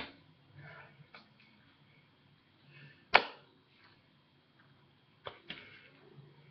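Hands striking together while signing: a few sharp taps and slaps, the first as the two fists knock together, the loudest about three seconds in and two close together near the end, with soft rustling of hands and sleeves between.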